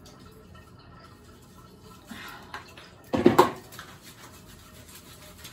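A wet dog being shampooed by hand: quiet rubbing and water sounds, with one short, loud burst of noise a little after three seconds in.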